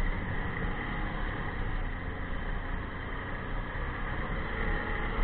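Ski-Doo snowmobile heard from on board while riding along a snowy trail: a steady drone of engine and track under a constant rushing noise, with no change in pace.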